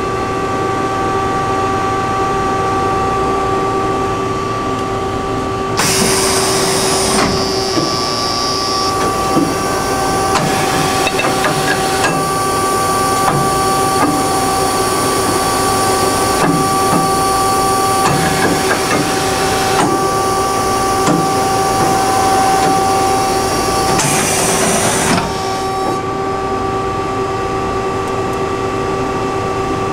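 Tsugami MA-3H CNC horizontal machining center running with a steady hum from its pumps and drives. About six seconds in, a loud hiss starts with occasional clunks and lasts about twenty seconds while the pallet changer swings a pallet through the work-area door, then cuts off.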